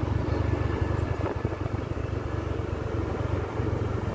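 Motorcycle engine running steadily while riding along, heard as a low rumble mixed with wind noise on the microphone.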